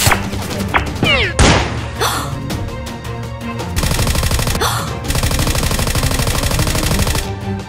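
A rapid-fire machine-gun sound effect, a fast run of sharp shots lasting about three seconds in the second half, over background action music. A few falling swooshes come about a second in.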